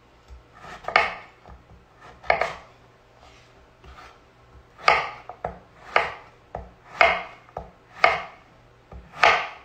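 Chef's knife slicing delicata squash into half-inch pieces on a wooden cutting board: each stroke is a short crunch through the squash ending in a tap on the board, about once a second.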